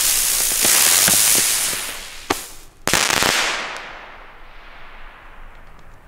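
Funke Feuerfalke flying firework bird rising with a loud rushing hiss. About two seconds in there is a sharp crack, then a louder burst half a second later whose fizzing dies away within a second.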